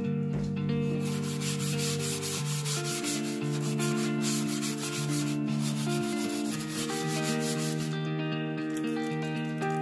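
Stainless steel wool scrubber rubbing back and forth on the oven door's glass, a run of rasping scrubbing strokes, with background music playing underneath.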